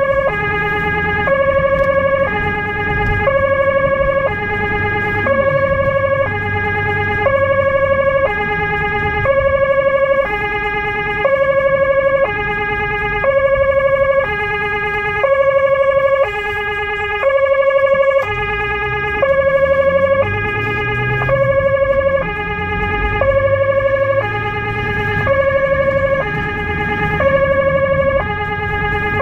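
Two-tone hi-lo emergency siren switching between two pitches about every 0.7 seconds, heard from inside the car's cabin, with engine and road noise underneath.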